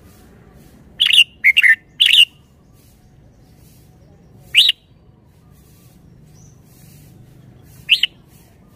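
Red-whiskered bulbul singing: a quick phrase of four loud short notes about a second in, then a single note about halfway through and another near the end.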